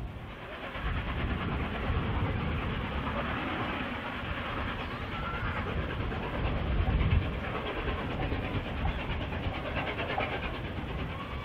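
LNER A1 Pacific steam locomotive hauling its train up a steep 1 in 60 gradient, working hard, heard from across the bay as a steady rumble with a louder swell about two-thirds of the way through.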